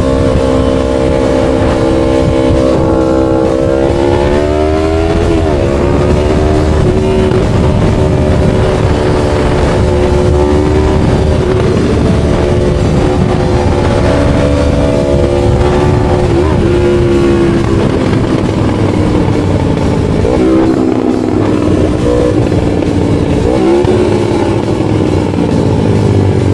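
2017 Yamaha R3's 321 cc parallel-twin engine running under way, its pitch holding steady, rising and dipping several times with throttle changes and gear shifts.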